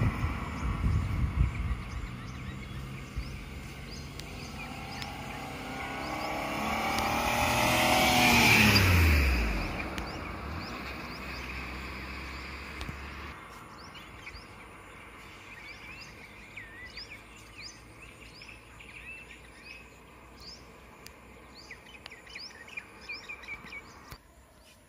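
A car driving past on the road: its engine and tyre noise swell to a peak about eight or nine seconds in and drop in pitch as it goes by. Afterwards, birds chirp repeatedly over quiet background.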